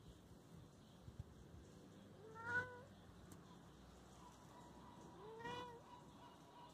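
Kitten meowing twice, about three seconds apart, each call rising in pitch; the first is the louder.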